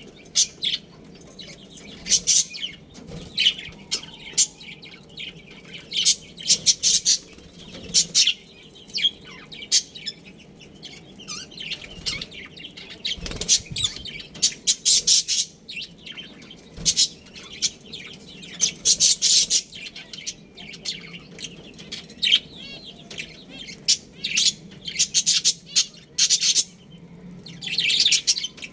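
A colony of budgerigars chirping and chattering, with many short, high calls overlapping in quick, irregular bursts.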